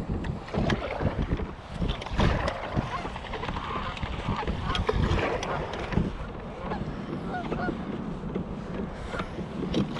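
Water slapping and splashing against a kayak hull, with wind on the microphone and irregular knocks.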